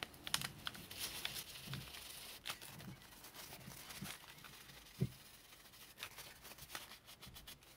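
Faint rustling and rubbing of a paper coffee filter, damp with isopropyl alcohol, wiping old thermal compound off a graphics card's chip, with scattered small clicks. A soft thump comes about five seconds in.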